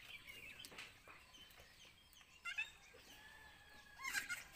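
Young goat bleating in short, high-pitched calls, twice, the louder one near the end.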